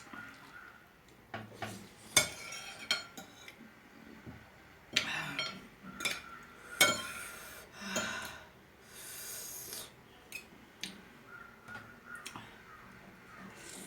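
Eating spicy, brothy instant noodles up close: short slurps and chewing, with cutlery clicking against the dish several times and a longer breathy rush about nine seconds in.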